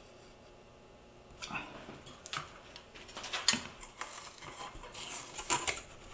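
Irregular taps, clicks and rustles of framing materials being handled on a worktable, starting about a second and a half in after a quiet moment.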